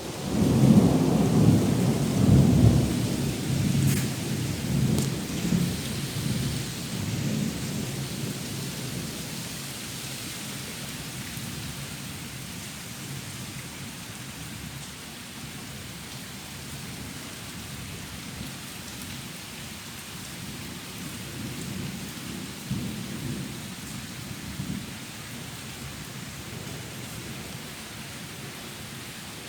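A thunderclap breaks in suddenly and rolls on as a long low rumble, fading over about ten seconds, with steady heavy rain falling throughout. A fainter roll of thunder comes again past the middle.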